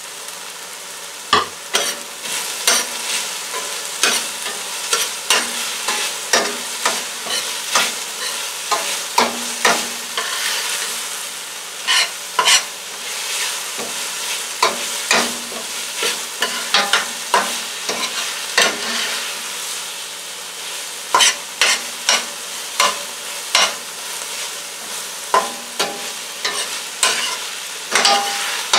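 Chopped cabbage and vegetables frying in oil in a stainless steel skillet, sizzling steadily while being stirred. The utensil scrapes and clacks against the pan in irregular strokes, about one or two a second.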